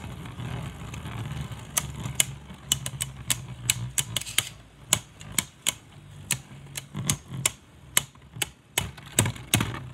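Two Beyblade Burst tops spinning in a plastic stadium: a steady low whir of their tips on the stadium floor, with sharp, irregular clacks as they strike each other.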